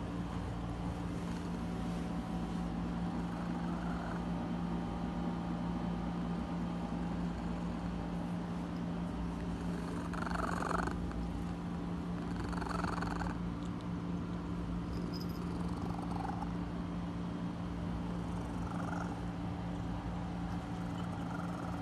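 Domestic cat purring steadily, with several short chirping calls: the bird-like sound this cat makes when it is being affectionate.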